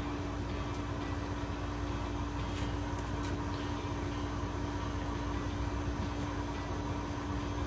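Steady mechanical hum with a constant low tone and an even hiss behind it.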